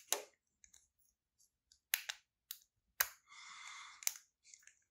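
Sharp metallic clicks and taps from an American Lock 1100 padlock being taken apart with a key and screwdriver: about five separate clicks, with a scrape lasting about a second just after the third second.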